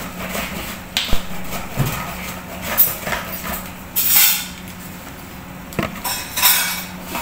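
Kitchen objects handled on a countertop: a few light knocks and clinks, and short rustling bursts, one as a bottle is picked up about four seconds in, over a low steady hum.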